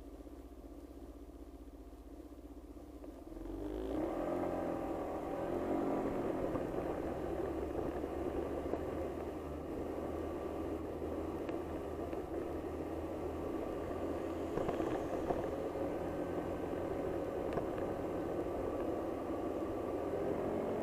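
Car engine and road noise picked up by a dashcam microphone inside the car: a low idle hum, then about three and a half seconds in it gets louder as the car moves off and keeps driving steadily.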